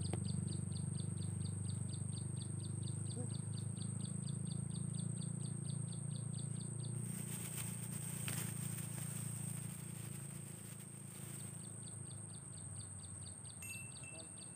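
Insects chirping in a steady rhythm of about four chirps a second, pausing for a few seconds midway, over a continuous high-pitched insect whine and a steady low hum.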